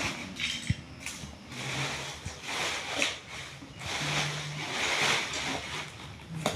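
Loose plastic LEGO bricks clattering and rustling in repeated bursts with small sharp clicks as a hand stirs through a pile of them on a tiled floor.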